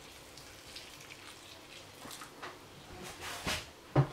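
Boiling water poured from a kettle in a thin stream onto rice and pigeon peas in a pan, a faint steady splashing. A few short, louder knocks come near the end.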